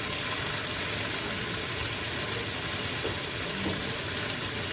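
Chicken leg quarters sizzling steadily in hot oil as they brown in the pot.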